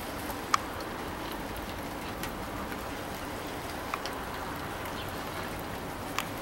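Steady rain falling, an even hiss with four sharp ticks standing out from it.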